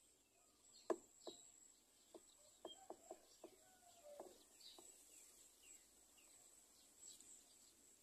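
Faint natural ambience: a steady high insect drone with scattered short chirps of distant birds, and a run of soft sharp ticks and taps from about a second in, the first the loudest.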